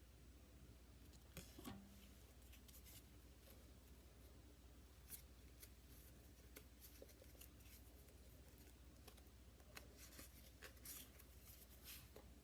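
Near silence, with faint scattered clicks and rustles of trading cards being handled and sorted by hand.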